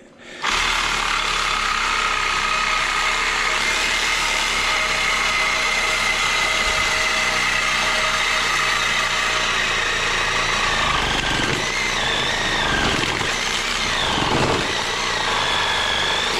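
Electric power saw cutting through an AC condenser coil at the point where its copper tubing ends. It starts about half a second in and runs steadily, with its pitch wavering in the last few seconds as the blade works through the coil, then stops at the end.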